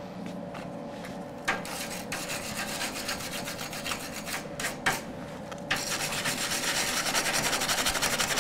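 Hand wire brush scrubbing freshly spot-welded sheet steel, its steel bristles scraping back and forth over the metal to clean the welds. The strokes start about a second and a half in and turn faster and louder in the last few seconds.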